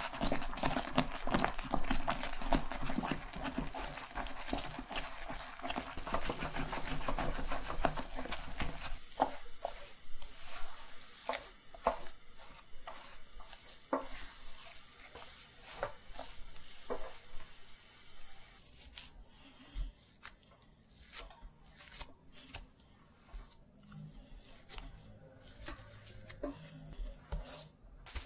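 A spatula stirring sweetened mung bean paste cooking down in a pot, with dense spluttering and sizzling for the first several seconds. As the paste thickens toward a stiff, clay-like dough, the sound thins to separate scrapes and slaps of the spatula against the paste and pan, then scattered soft knocks.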